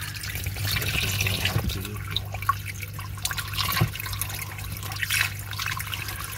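Turtle-tank filter's water jet splashing and bubbling at the surface, with scattered drips and small splashes. Under it runs a steady low hum from the filter pump.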